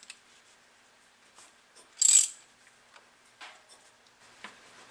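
Hand ratchet driving an oil filter strap wrench to break a spin-on oil filter loose. It is mostly quiet, with a few light clicks and one short, louder ratcheting rasp about two seconds in.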